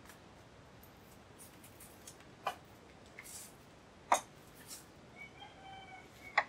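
A few sharp clinks of crockery being handled on a table, with a short faint pitched call about five seconds in.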